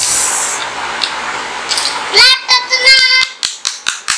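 A rushing hiss, then a child's high-pitched sung voice, loudest about two seconds in, followed near the end by quick hand clapping, about four claps a second.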